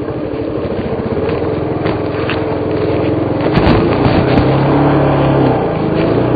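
Suzuki DR350 enduro's single-cylinder four-stroke engine running under load on a rocky trail, its revs rising a little past the midpoint and then holding steady. A few sharp knocks come near the middle.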